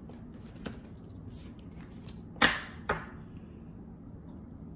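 Tarot cards knocked against a tabletop: two sharp taps about half a second apart, the first the louder, after a faint click.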